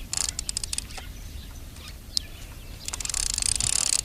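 Baitcaster reel being wound in with line held taut: its high whirr stops, a few quick clicks follow, and the winding starts again about three seconds in. A single short bird chirp sounds in the pause.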